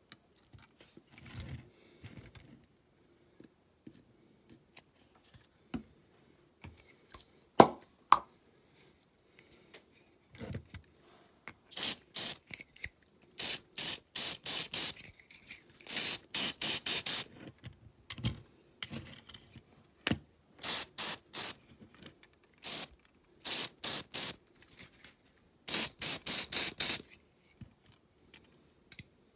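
Hand work on a small die-cast model: a few knocks and clicks, then from about halfway on, clusters of quick, sharp hissing or scraping strokes, several a second.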